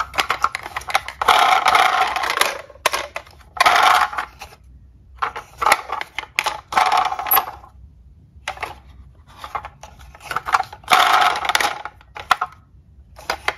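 Plastic toy vehicles being handled: repeated bursts of clattering and scraping as toy cars knock against each other and the cardboard box, with sharp clicks in between.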